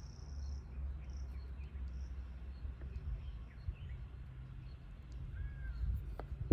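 Faint background ambience: a low steady rumble with a few faint bird chirps, and a single sharp click at the very end.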